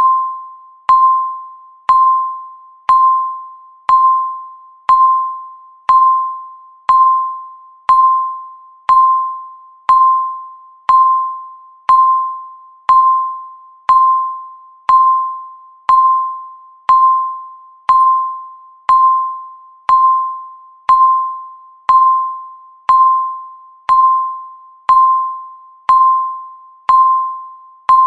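Countdown timer's electronic beep ticking off the seconds: one clear, single-pitched tone once a second, each starting sharply and fading away before the next.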